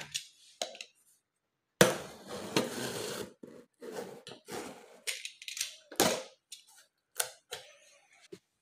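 Cardboard printer box being handled and opened: a sharp knock about two seconds in, then scraping and rustling, then several more sharp knocks.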